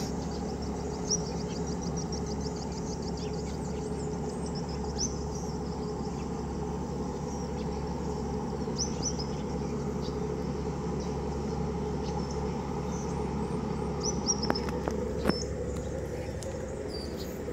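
A steady low engine hum with birds chirping now and then over it, and a few faint clicks near the end.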